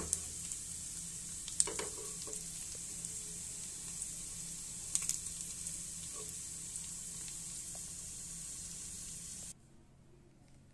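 Mutton pieces sizzling in hot oil in a wok, with a metal spatula scraping and clacking against the pan a few times. The sizzle cuts off suddenly near the end.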